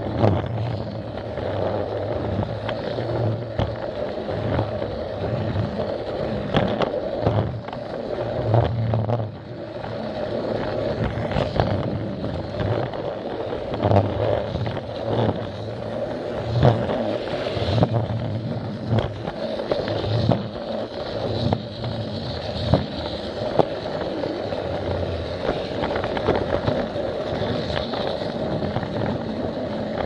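Battery-powered Plarail toy train running steadily along plastic track: the small electric motor and gearbox hum, with sharp clicks now and then as the wheels cross the track joints, heard up close from a camera riding on the train.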